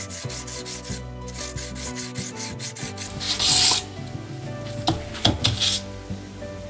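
Metal parts of an old manual spice mill rubbed back and forth on flat sandpaper to true and clean their faces: quick rhythmic scraping strokes, with one longer, louder stroke about halfway through.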